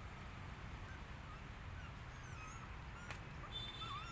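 Faint, high, wavering squeaks from a small animal, several short ones and a longer one near the end, with a couple of light clicks.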